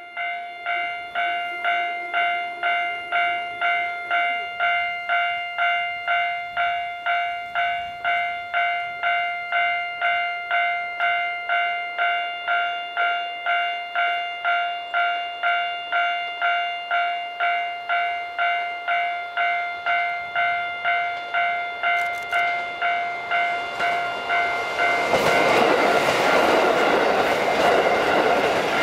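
Level-crossing warning bell ringing electronically in an even ding-ding at about two strokes a second. About 25 seconds in, a KiHa 183 series diesel express train passes close and its engine and wheel noise swells over the bell.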